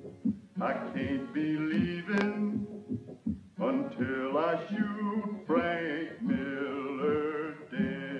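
A man singing a slow western ballad in long, drawn-out phrases with a wavering vibrato, over sparse accompaniment.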